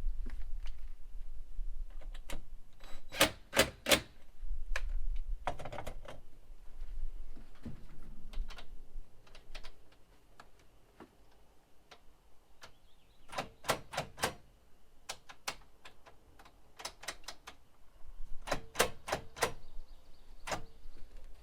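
Sharp clicks and taps, several in quick clusters of three or four, with pauses between: door latch and lock hardware being worked on by hand and with tools to free a stuck lock.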